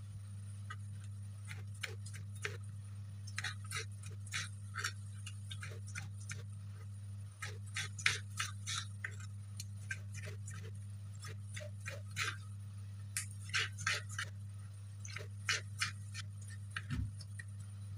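Kitchen sounds during cooking: many light, irregular clicks and taps, coming in clusters, over a steady low hum.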